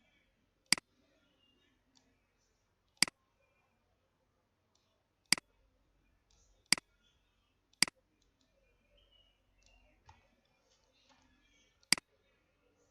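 Computer mouse buttons clicking, six single sharp clicks spaced irregularly a second to four seconds apart.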